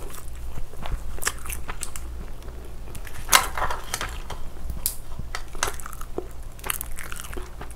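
Soy-sauce marinated raw crab (ganjang gejang) being pulled apart and bitten: scattered wet crackles and cracks of crab shell, the loudest a little over three seconds in.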